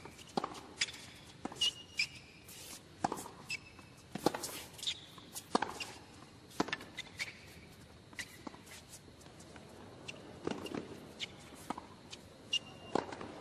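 Tennis rally on a hard court: a ball is struck back and forth with rackets and bounces, giving sharp, irregular impacts about every second or so, with shoes briefly squeaking on the court surface between shots.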